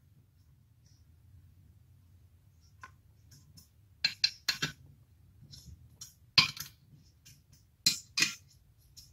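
Metal bolts and the aluminium throttle body clinking against the ported aluminium intake manifold as the throttle body is fitted and its bolts started by hand: scattered sharp clinks, several in quick groups.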